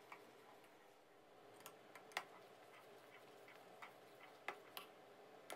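Faint, irregular sharp clicks and ticks from a stainless-steel pot of chilli-garlic sauce simmering down as it is stirred with a metal ladle, the loudest click about two seconds in.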